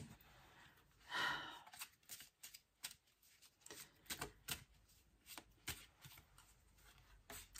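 Tarot cards being shuffled and handled: a quiet run of short card snaps and rustles, with a brief soft rush about a second in.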